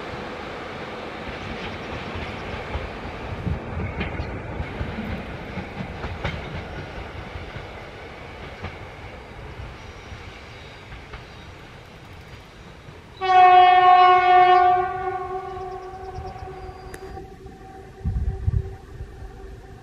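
Departing passenger train rolling away over the track, its wheel noise slowly fading with a few rail clicks. About two-thirds of the way through, the SU42 diesel locomotive sounds one loud horn blast lasting about a second and a half. A few low rumbles come near the end.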